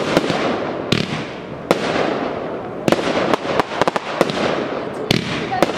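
Aerial fireworks going off in quick succession: a dozen or so sharp bangs at irregular intervals over a continuous hissing crackle of bursting shells and comets.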